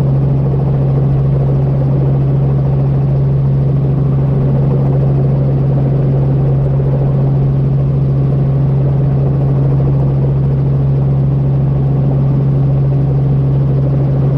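Helicopter hovering low, heard from inside the cockpit: a steady drone of rotor and engine with a strong constant low hum.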